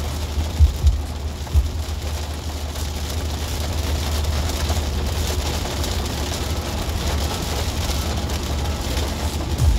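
Heavy rain falling on a car, heard from inside, the rain hiss swelling through the middle. Underneath runs a steady deep rumble, with a few short low thumps in the first couple of seconds.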